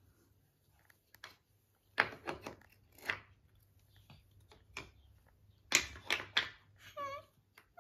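Pegged wooden puzzle pieces knocking and clacking against the wooden puzzle board and the floor as they are handled and fitted into their slots, a string of sharp knocks in small clusters. A short high-pitched vocal sound comes near the end.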